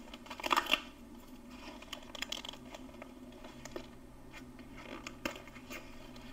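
Plastic snack wrapper being handled and picked at to open it: a burst of crinkling about half a second in, then scattered small crackles and clicks.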